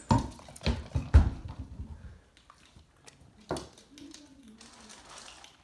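A thrown toy hitting a hardwood floor, with several thumps and knocks in the first second or so, the loudest a little over a second in, and one more about three and a half seconds in.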